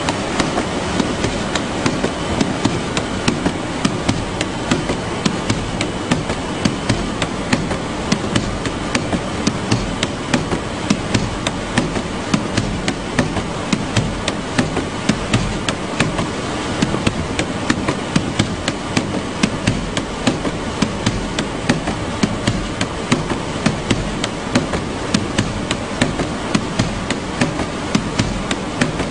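Parcel-sorting conveyor machinery running with a steady rumble and a stream of sharp clacks, about three a second.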